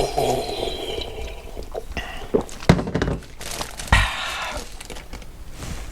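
Workbench handling noise from dismantling a motorcycle gearbox: a few sharp knocks of small metal parts and tools set down, with rustling in between.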